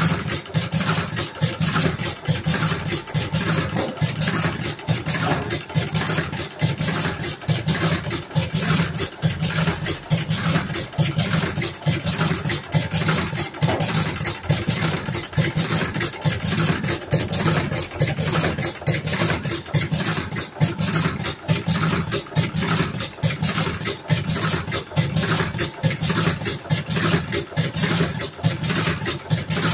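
Electric thick-cigarette rolling machine running continuously, its injector mechanism clattering in a fast, even rhythm as it packs tobacco into paper tubes.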